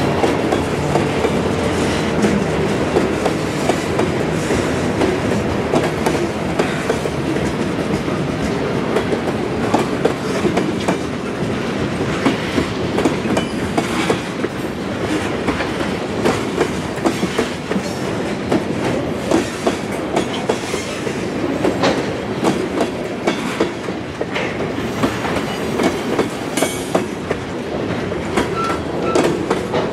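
Freight train cars rolling past, the steel wheels clacking over rail joints in a steady run of clicks over a continuous rumble.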